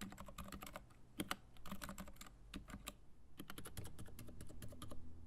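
Typing on a Massdrop Alt mechanical keyboard with Gateron Silent Red linear switches, GMK keycaps, looped stabilizers and sound-dampening material in the case. The key presses come in quick irregular runs, with a short pause midway, and are very quiet.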